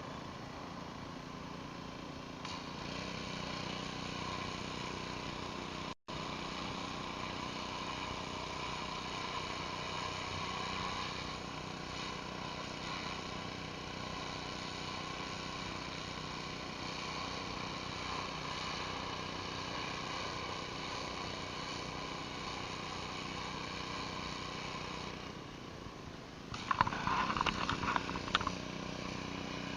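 Pressure washer engine running steadily, with the hiss of water spraying from a surface cleaner on concrete. The sound drops out for a split second about six seconds in. Near the end it turns louder and irregular, with sharp clattering spikes.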